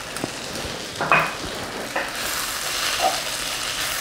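Ground beef filling with onion, peppers and tomato frying in a pan: a steady sizzle that thickens about halfway, with a few short scrapes of the stirring utensil.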